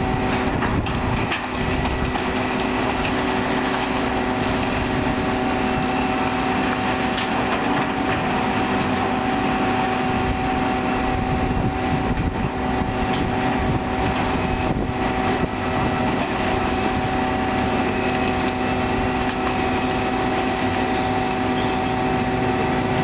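Heavy demolition machinery running, a steady engine drone with a few constant tones through it.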